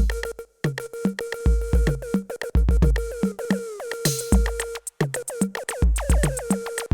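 Electronic background music with a drum-machine beat: deep kick drums and sharp percussive hits over a held synthesizer tone, with a few brief breaks in the beat.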